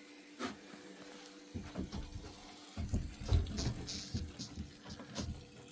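Water splashing and trickling as a small boat's bilge pump drains it, the pump motor a faint steady hum underneath. Scattered knocks and low thumps start about a second and a half in.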